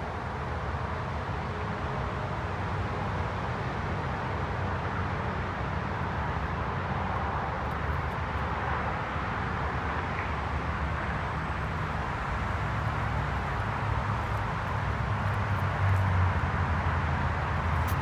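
Steady background rumble of distant road traffic, swelling slightly near the end.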